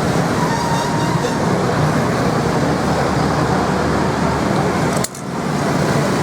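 Steady street traffic noise, which dips sharply for a moment about five seconds in.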